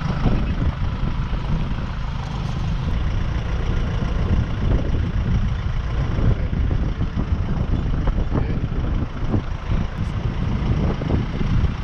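Wind and road noise from a ute driving along, picked up by a camera mounted on the outside of the vehicle: a loud, steady, buffeting low rumble of wind on the microphone over engine and tyre noise.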